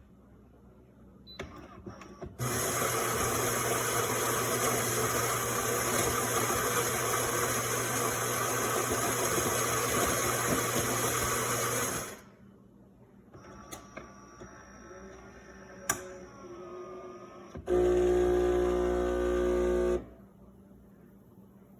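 Fully automatic espresso machine's built-in grinder grinding coffee beans for about ten seconds. After quieter clicks and whirring, the machine's pump buzzes loudly for about two seconds.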